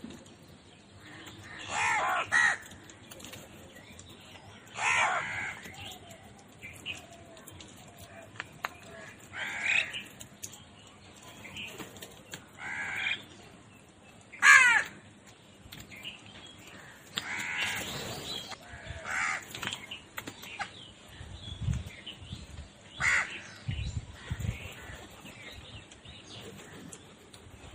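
Birds calling with harsh, cawing calls repeated every few seconds, the loudest about halfway through, with a few low thumps near the end.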